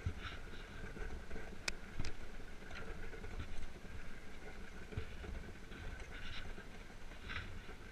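Iceboard gliding over lake ice under sail: a steady rumble and hiss from the runners on the ice, with a few sharp ticks about two seconds in.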